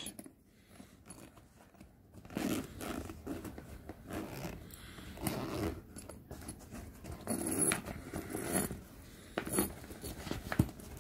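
Zipper on a fabric camera bag being pulled open in several short runs, starting about two seconds in.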